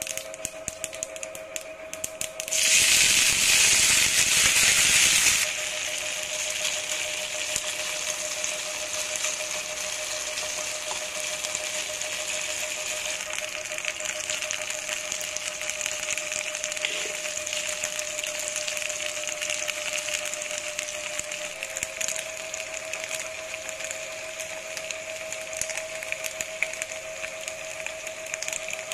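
Mustard seeds and dried red chillies crackling and spitting in hot oil in a frying pan. After about two and a half seconds a loud burst of sizzling lasts about three seconds as the boiled chunks go into the oil. It then settles into steady frying sizzle, with a steady hum underneath.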